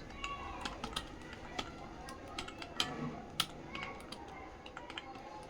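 Typing on a computer keyboard during a typing speed test: irregular key clicks, a few a second, with a few sharper strokes.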